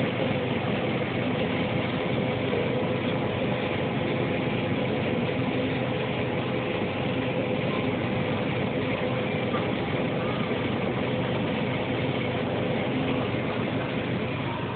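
Combine harvester running steadily while threshing maize: an even, unbroken machine drone from its engine and threshing gear, heard from the cab.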